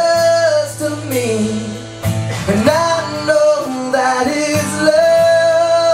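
Live blues band playing, with a singer holding long notes over guitar accompaniment.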